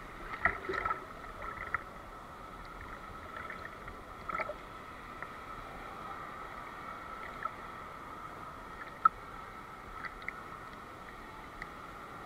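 Pool water splashing and gurgling around a swimmer doing backstroke, with a steady wash of water and scattered sharp knocks, the loudest about nine seconds in.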